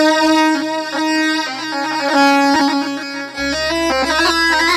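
Instrumental Arabic folk music: an ornamented melody on a violin-like lead, with a low held bass note coming in about three and a half seconds in.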